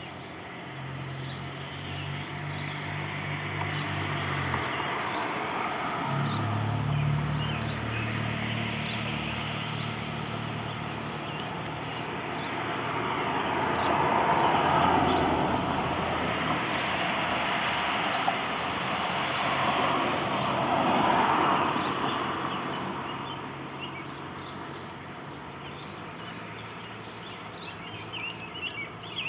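Motor-vehicle noise: a low engine hum through the first dozen seconds, then broad road noise that swells and fades twice, as vehicles pass. Short high chirps repeat throughout.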